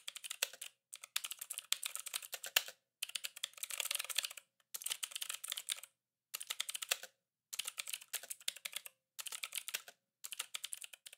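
Fast typing on a computer keyboard in about eight bursts, each a second or so of rapid key clicks, separated by short pauses.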